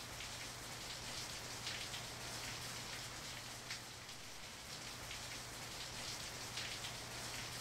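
Steady rain falling on a wet street, an even hiss with a few louder drops striking close by now and then. A faint low hum runs underneath.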